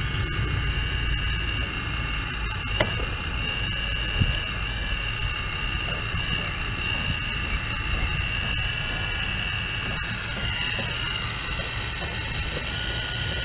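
Caterpillar 235 hydraulic excavator working: a low diesel engine rumble under a steady high-pitched hydraulic whine, with two sharp clanks about three and four seconds in. Near the end some of the whine's pitch shifts.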